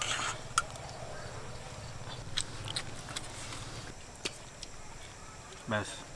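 A few light, scattered clinks of a steel serving spoon against a steel bowl as curry is ladled out, with a short pitched call near the end.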